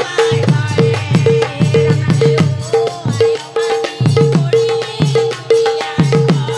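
Chorus of women singing an Assamese devotional song, with hand-clapping and a two-headed barrel drum keeping a steady, quick beat of ringing high strokes and low bass strokes.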